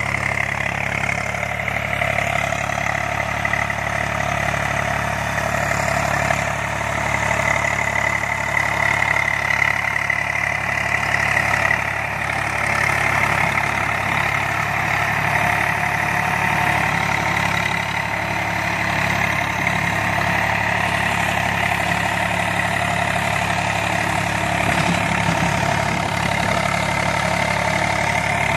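Eicher tractor's diesel engine running steadily under load as it pulls a PTO-driven rotavator through dry soil. The engine note stays even throughout, with a constant mechanical whirr above it.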